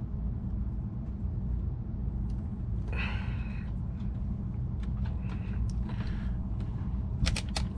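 Steady low rumble, with small hard parts clicking as an RC truck's axle parts are handled and fitted; a quick run of sharp clicks near the end.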